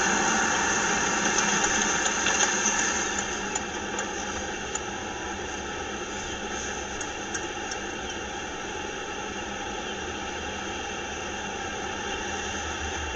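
Steady road and engine noise heard from inside a moving vehicle, a little louder for the first few seconds and then easing to an even level.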